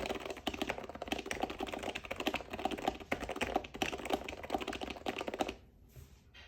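Fast typing on a Topre electrostatic capacitive keyboard fitted with old Pro2 rubber domes, a dense run of keystrokes that stops about five and a half seconds in.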